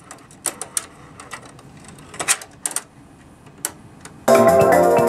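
Mechanical clicks and clunks from the TOA BA-823 double cassette deck as one tape is ejected and the deck switches over to the other deck. About four seconds in, music from the other tape starts playing abruptly.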